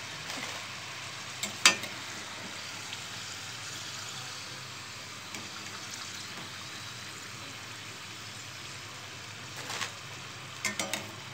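Kajjikayalu dumplings deep-frying in hot oil in a stainless-steel kadai, a steady sizzle. Sharp metal clinks of a slotted spoon against the pan, one loud one about a second and a half in and a few lighter ones near the end.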